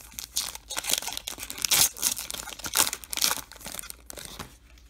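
Foil wrapper of a Topps Chrome trading-card pack being torn open and crumpled by hand: a string of noisy rips, loudest around two and three seconds in, dying away just before the end.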